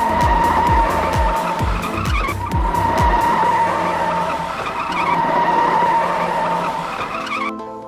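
Background music with a thumping beat for the first few seconds, overlaid by a steady high-pitched whine and hiss resembling a car engine or tyre sound effect, which cuts off shortly before the end.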